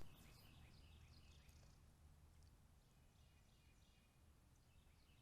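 Faint chirping of small birds: clusters of short, quick, high notes, busiest in the first two seconds and again around three seconds in, over a low steady hum. A brief click at the very start.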